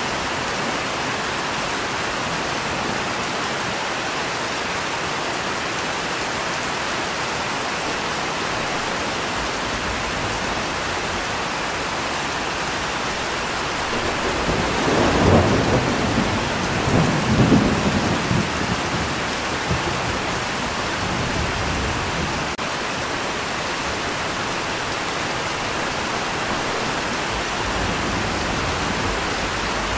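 Steady rain, with a roll of thunder about halfway through that rumbles for several seconds in two swells before fading back into the rain.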